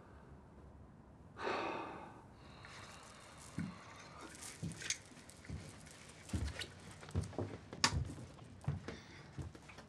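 A heavy exhaled sigh about a second and a half in, followed by scattered soft knocks, clicks and rustles of small movements in a quiet room.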